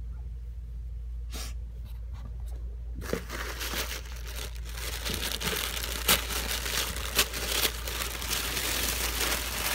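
Paper and plastic packaging rustling, crinkling and tearing as a snack subscription box is unpacked by hand, with a few sharp crackles. A few soft knocks come first, and the steady rustling starts about three seconds in.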